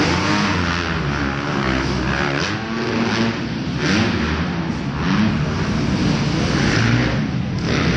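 Several dirt bike engines racing on a dirt track inside an arena hall, revving up and easing off again and again, their pitch rising and falling as the riders throttle through the jumps and turns.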